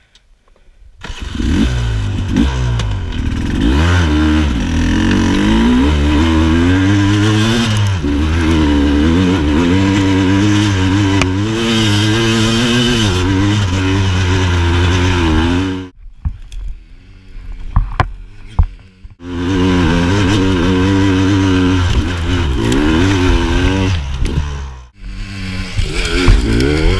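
A 300cc two-stroke enduro dirt bike engine working hard up a steep, loose hillside, its revs rising and falling as the throttle is worked. About two-thirds of the way through, the engine note drops out for a few seconds, with a few knocks, then picks up again under power.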